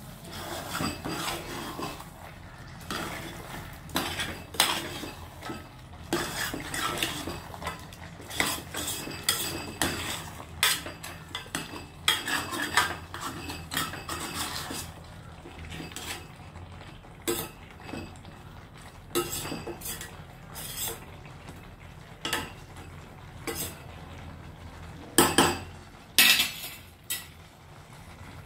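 A ladle stirring and scraping thick chicken curry in a stainless steel pressure cooker pot, clinking against the pot's sides and bottom. Rapid scrapes in the first half, then occasional knocks, the two loudest a few seconds before the end.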